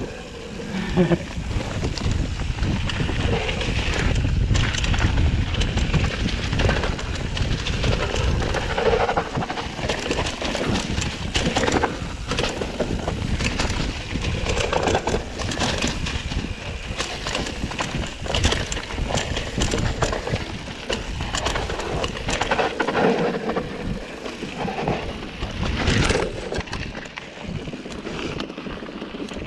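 Mountain bike riding down a dirt singletrack: tyres rolling over dirt and leaves, with frequent clicks, knocks and rattles from the bike over bumps.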